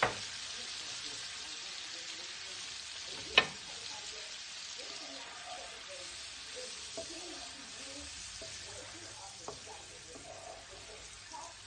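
Capers and sauce sizzling in hot oil in a frying pan, stirred with a wooden spatula, the hiss slowly dying down. One sharp knock comes about three and a half seconds in, with a few light knocks later.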